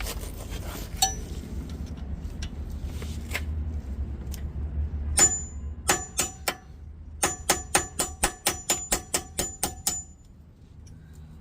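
Hammer tapping a punch against a brake caliper's pad retaining pin: sharp metal-on-metal strikes that ring. A few single taps come about five seconds in, then a quick run of about a dozen taps, roughly four a second, ending about ten seconds in. The taps are driving out the lower pin, which is stuck, possibly rusted in.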